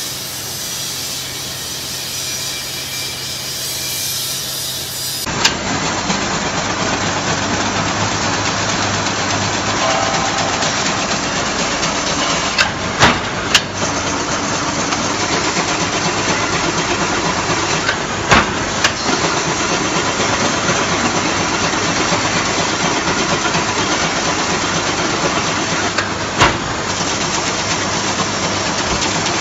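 Double-wire chain link fence machine running. A steady motor hum gives way about five seconds in to a louder, even mechanical clatter, broken by a few sharp knocks.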